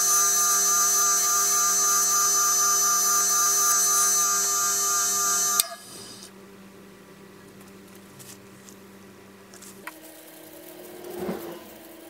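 Electric motor of a 1950s Italian bench grinder running, spinning its long steel shaft while an abrasive block is held against it: a steady hum with a high whine. It cuts off abruptly about halfway through, leaving a faint hum and a brief rubbing sound near the end.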